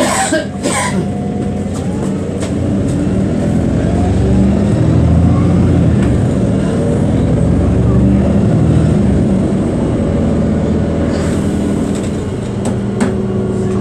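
City bus engine heard from inside the cabin, pulling away from a stop and accelerating: it grows louder from about three seconds in and eases off after about eleven seconds. A couple of sharp knocks come right at the start.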